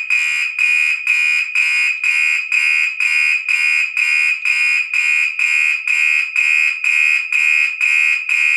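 Gentex SHG fire alarm horn sounding in march time: a loud, harsh electronic horn tone pulsing on and off evenly about twice a second.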